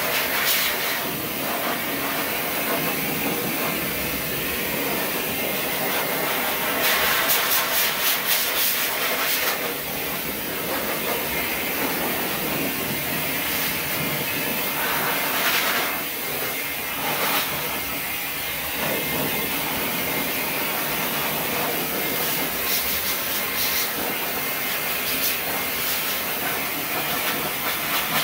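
High-velocity pet blow dryer blowing a steady rush of air, briefly louder with a fluttering edge about seven seconds in.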